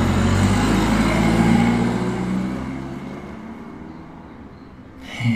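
A car engine running steadily, then fading away as the car drives off. Near the end comes a short vocal sound.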